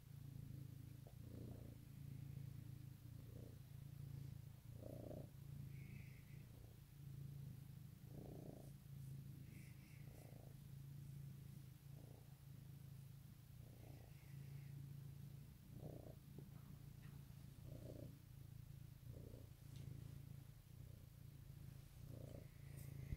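Domestic cat purring steadily and softly, the purr rising and falling in a regular rhythm about every two seconds.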